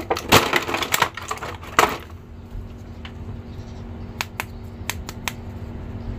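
Clear plastic blister packaging crinkling and crackling as it is handled, densest in the first two seconds, then a few light plastic clicks and taps from handling a small plastic action figure.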